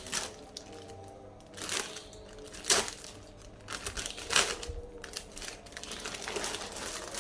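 Plastic snack wrappers crinkling and rustling as packages are handled and opened, with a few louder sharp crackles spaced irregularly.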